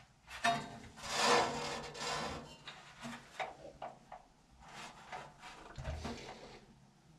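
Metal blower parts scraping and rubbing against each other with a few light knocks, in irregular strokes, as the blower assembly is worked into position; the strongest scrape comes about a second in.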